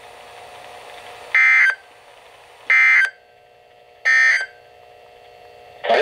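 NOAA Weather Radio SAME end-of-message code coming through the speaker of a Midland weather radio: three short bursts of harsh digital data tones, each about a third of a second long and about 1.4 s apart. They mark the end of the severe thunderstorm warning message. A faint steady hum lies underneath, and a voice starts again right at the end.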